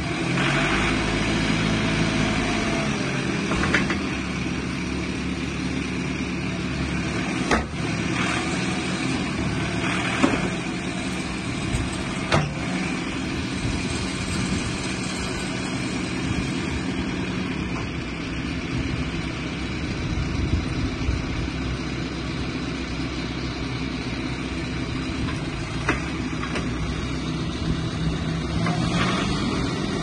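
A JCB 3CX Compact backhoe loader's diesel engine running steadily while the machine is worked, with the backhoe arm raised from its folded position near the end. A few sharp knocks sound between about eight and twelve seconds in.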